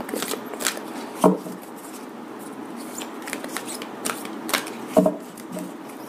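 A deck of oracle cards being shuffled by hand: soft rustling with scattered card clicks, and a sharper knock about a second in and another near five seconds.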